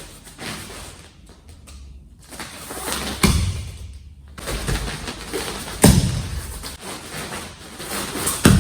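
Three heavy thuds about two and a half seconds apart, with rustling between them, from karate strikes and footwork being demonstrated.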